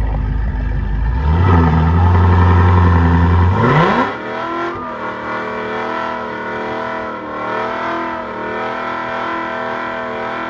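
Cadillac CTS-V's V8 doing a burnout. The engine is held at steady revs, rises sharply about four seconds in, then stays high with small wavers while the rear tire spins and smokes.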